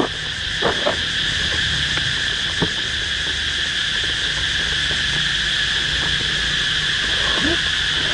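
Steady high drone of insects in two pitch bands, with a few faint clicks and rustles of a cardboard box being handled.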